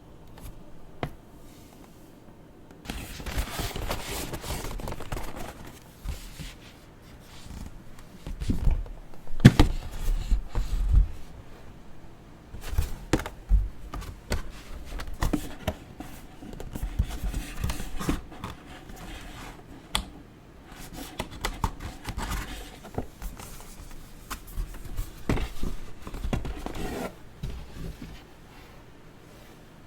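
Hands unboxing a collector doll: rustling and scraping of cardboard and plastic packaging, with scattered clicks and knocks, in stretches of a second or two, loudest about a third of the way in.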